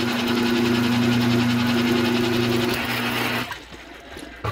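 Hamilton Beach electric can opener's motor running as it cuts around a can, a steady hum that stops about three and a half seconds in. A short click near the end.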